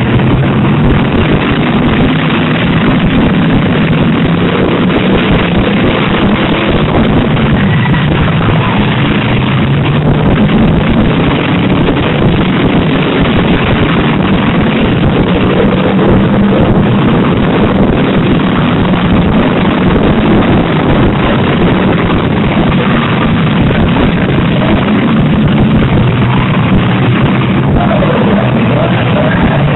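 Several demolition derby cars' engines running hard and revving together, loud and continuous, their pitch wavering up and down.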